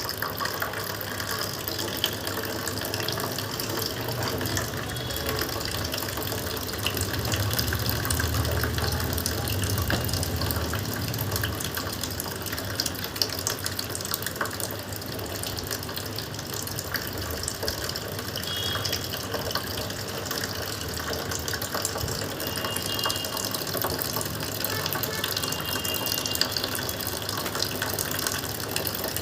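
Lukewarm salt water from a neti pot running through one nostril and out the other, trickling and splashing steadily during jal neti nasal rinsing.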